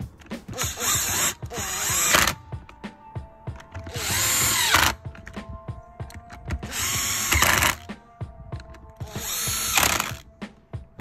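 Makita cordless impact driver driving in the screws of a Paslode nail gun's rear cap, in four short runs of about a second each, the motor winding up and down with each screw.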